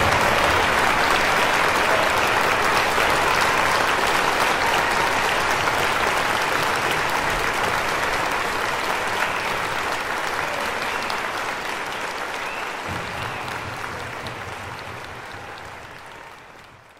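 Audience applauding, the applause fading away near the end.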